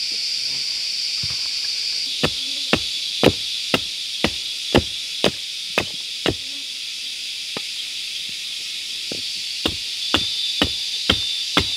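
Hatchet chopping into a block of wood in quick, even strokes, about two a second, starting about two seconds in, pausing for a few seconds in the middle and then resuming. A steady high insect buzz runs underneath.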